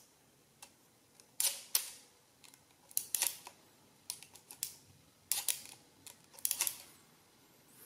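Mechanism of a 1964 Beaver mechanical adding machine, out of its case, clicking and clattering as its pin frame and toothed racks are worked by hand. The sharp clicks come in pairs and small clusters, roughly once a second.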